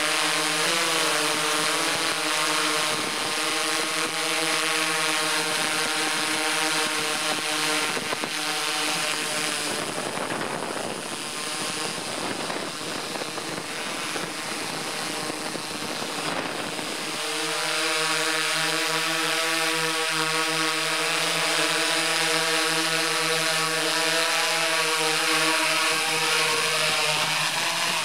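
Quadcopter drone's propellers buzzing steadily overhead as it hovers, an even pitched whine. Midway through, the tone blurs into a rougher, slightly quieter rush as the drone moves, then settles back into the steady buzz.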